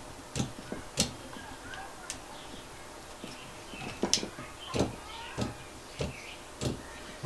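Pressure switch on a SHURFLO Revolution water pump clicking repeatedly: a few scattered clicks at first, then a steady click about every two-thirds of a second.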